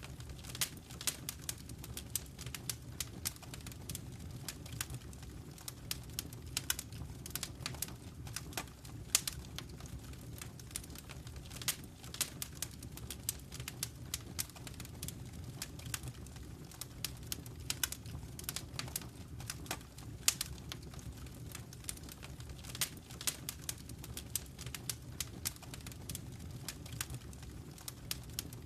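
Wood fire burning in a fireplace: irregular crackles and sharp pops, many a second, over a steady low rumble of the flames.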